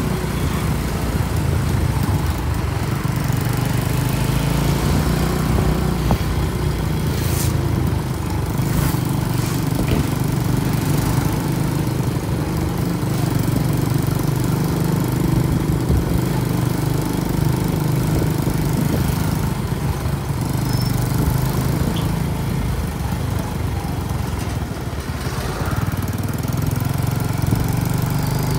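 An engine running steadily at a constant speed, with a few brief knocks.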